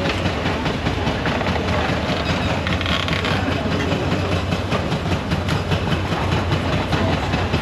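Heavy engines running steadily: a low, even drone under a wash of busy street noise.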